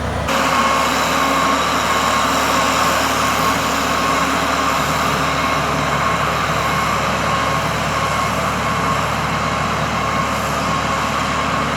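John Deere bulldozer's diesel engine running steadily under work, with a constant whine over the engine noise.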